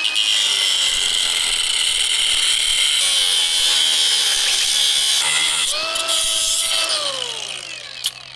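Ridgid cordless angle grinder grinding metal off a bicycle's crank, a loud steady grinding hiss over the motor's whine, to clear a part that hits and won't let the drive turn. Near the end the trigger is released and the whine falls in pitch as the disc spins down.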